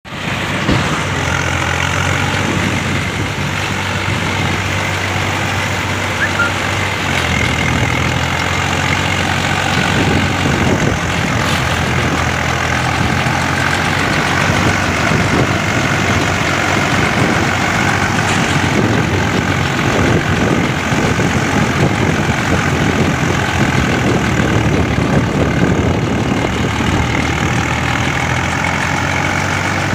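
Swaraj 963 tractor's diesel engine running steadily while driving a round baler through its PTO, with the baler's machinery running underneath the engine note.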